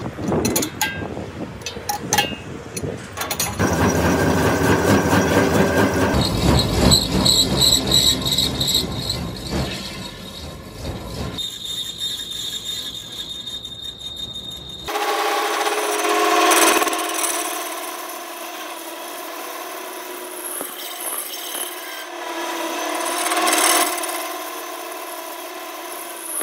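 Metalworking tool noise on steel plate, in several short takes: scraping and rubbing at first, then a steadier power-tool sound with two louder surges, one a little past the middle and one near the end.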